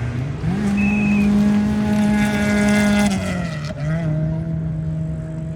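Rally car engine at high revs, held steady flat out for about three seconds, then a brief dip in revs before it pulls steadily again.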